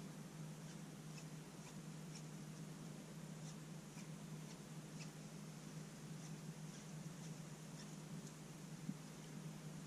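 A steady low hum with faint, scattered high ticks.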